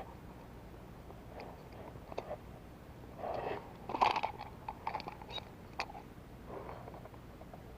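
Close handling noises: a cluster of rustles and sharp clicks, loudest about four seconds in.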